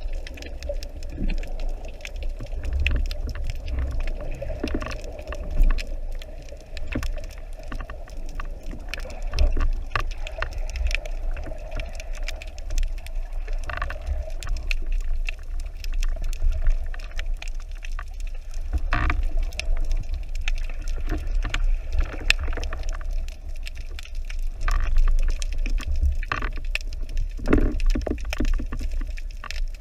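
Underwater sound picked up by a camera in its housing: a steady low rumble of moving water with scattered clicks and knocks.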